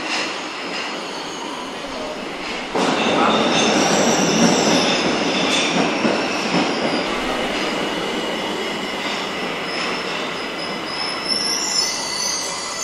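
Tokyo Metro Ginza Line train pulling into an underground station: the rumble of the cars jumps up sharply about three seconds in as the train runs alongside the platform, with high wheel squeals over it, and further squeals near the end as it slows to a stop.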